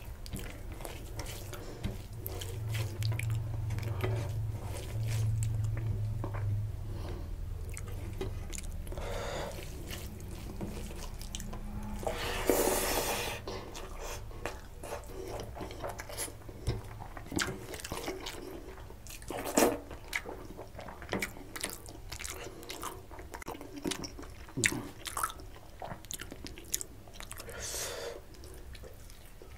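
Close-miked eating sounds: wet chewing of rice and mutton curry, with fingers squishing and mixing rice in gravy on a steel plate, and many short smacks and clicks. A louder, longer wet burst comes about halfway through.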